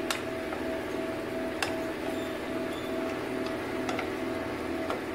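Vegetables sautéing in oil in an aluminium pot: a steady hiss over a low, even hum, with three sharp clicks spread through.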